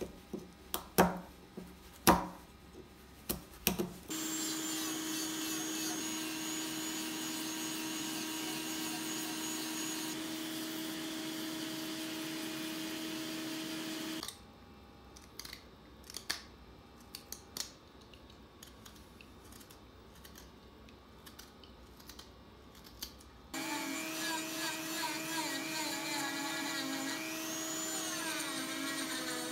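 Sharp clicks of a carving chisel cutting curly maple for the first few seconds, then a Dremel 3000 rotary tool running with a steady whine for about ten seconds as a sanding drum shapes the maple. After a quieter stretch of scattered clicks, the Dremel runs again for the last several seconds, its pitch sliding briefly near the end.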